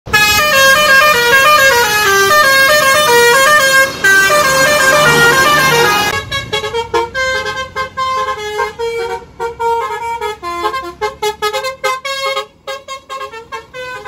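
Bus telolet horns, multi-tone musical horns, playing quick stepping melodies. Loud for the first six seconds, then quieter and choppier.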